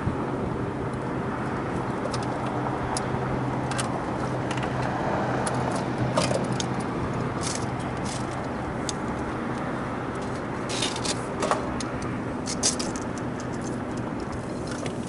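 A steady low machine hum with scattered metallic clinks and rattles, a few of them more pronounced later on.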